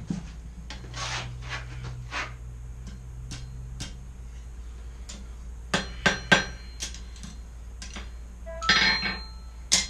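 Hand hammer striking a 1/4 inch square steel bar to form the second end of a forged S hook: irregular blows, light taps at first, then a few hard strikes with a brief metallic ring near the end.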